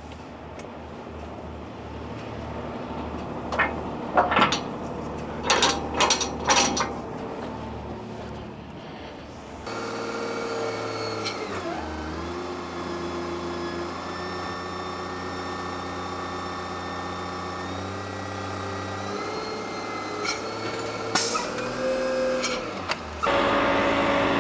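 Diesel engine of a roll-off dumpster truck running. Several sharp knocks and brief hissing bursts come over a low rumble; partway through, the engine's pitch dips, then holds steady at a higher level.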